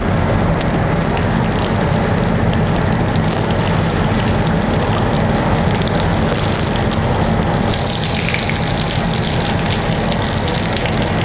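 Lamb pieces frying in foaming butter in a cast-iron skillet: a steady sizzle over a low hum, growing brighter and louder about eight seconds in. Light metal scrapes come from a spatula and tongs turning the meat.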